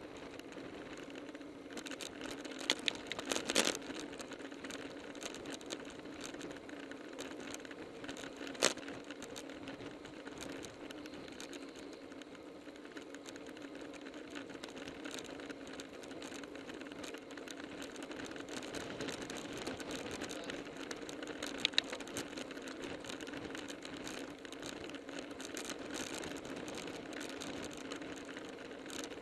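Road bicycle riding at speed: a steady whirring hum of tyres and chain drivetrain with wind noise, broken by a few sharp clicks.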